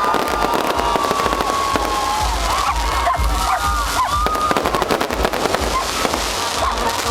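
Aerial fireworks bursting in a dense stream of rapid crackling pops and low thumps, with a crowd shouting and cheering over them.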